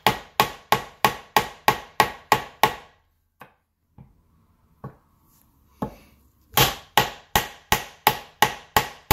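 Steel seal driver being struck over and over with the handle of an engine lift, about three sharp metallic knocks a second, each with a short ring, pressing a new PTFE rear main crankshaft seal into its cover. The knocking stops for about three seconds in the middle, with only a few light taps, then starts again.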